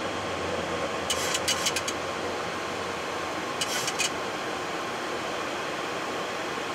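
Steady flight-deck noise of a Boeing 737-800 in its initial climb after takeoff: an even rush of airflow and engine noise, with two brief clusters of crackling clicks about a second in and near four seconds.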